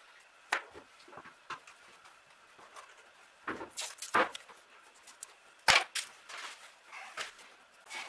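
Scattered light clicks and taps from hands and tools working on wire terminals and the wiring loom on a car's firewall, with a sharper knock about two-thirds of the way through.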